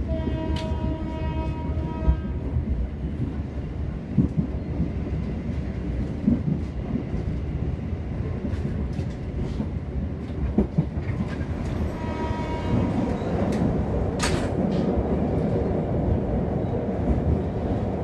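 Passenger train running along the track, heard from inside a carriage: a steady rumble with occasional clacks of the wheels over rail joints. A steady tone with overtones sounds twice, each time for about two seconds: once near the start and again about two-thirds of the way through.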